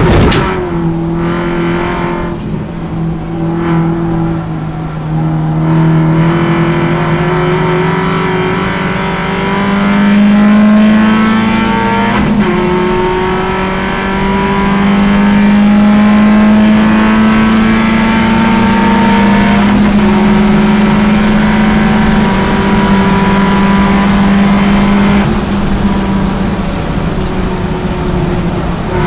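In-car sound of an Alfa Romeo Twin Spark four-cylinder race car engine under hard acceleration. The pitch climbs through the gears with shifts about ten and twelve seconds in, holds high and steady, then eases off near the end as the car begins to slow. There is a sharp knock at the very start.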